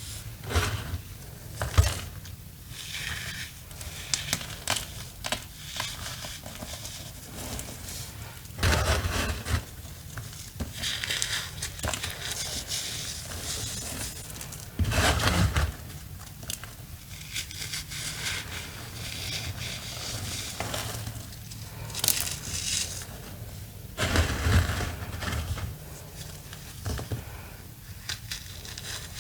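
Soft re-formed cornstarch blocks crushed by hand: repeated, irregular crunching and crumbling, with a handful of louder squeezes spread through.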